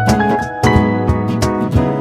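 Background music with pitched instruments and a steady beat.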